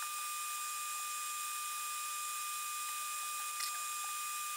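A steady faint hiss with a thin, high, constant whine, and one faint click about three and a half seconds in.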